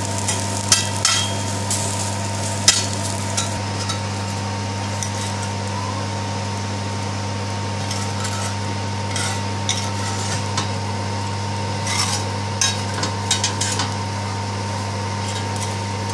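A metal spatula scraping and tapping on a flat chapati pan as dry-roasted dried fish is stirred and lifted off. The scrapes and clicks come in two spells, one at the start and another from about the middle, over a steady low hum.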